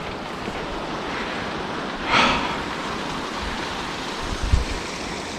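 Steady rushing noise of wind and sea surf. There is a short, louder gust-like rush about two seconds in and a soft low thump a little after four seconds.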